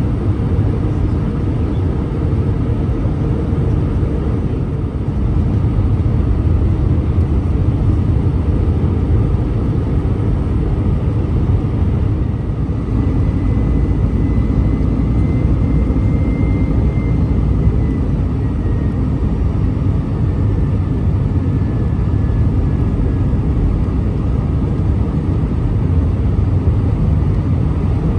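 Steady low rumble of an Airbus A319-100's engines and airflow, heard inside the cabin from a window seat over the wing during descent on approach. A faint thin whine comes in about halfway through, rises a little, then fades.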